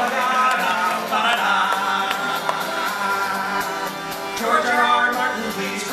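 Live song: an acoustic guitar strummed under male voices singing.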